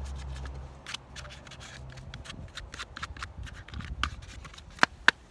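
A cloth wiping a car's side-mirror glass clean: a light rubbing with a run of small scrapes and ticks, and a few sharper clicks near the end.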